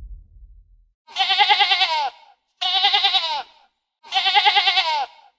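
The same bleating animal call repeated three times, about a second and a half apart: each call wavers quickly in pitch and drops at its end. A low rumble fades out before the first call.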